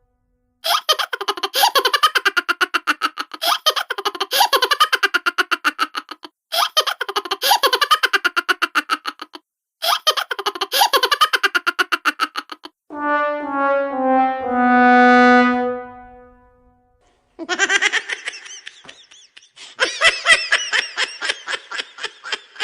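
Comedy sound effects: long runs of rapid, rhythmic laughter, then a falling four-note 'wah-wah-wah-waaah' sad-trombone sting with the last note held, followed by more laughter.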